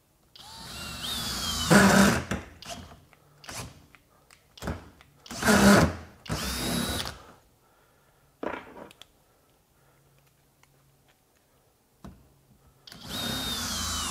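FLEX 24V hammer drill driving a 7-inch screw into pressure-treated 4x4 lumber on speed two: the motor whines and strains for about two seconds, then cuts off suddenly. This happens twice, with knocks and rattles of the drill and screw being handled between the runs, and the drill starts again near the end. The sudden stops are the drill's safety shutoff, which cuts power when the bit jerks the drill sideways.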